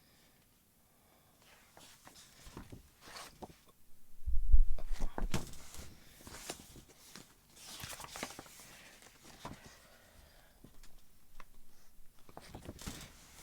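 Paper rustling and page handling as a booklet is leafed through, with scattered light clicks and swishes. About four seconds in, a loud low thump of the camera being knocked or moved.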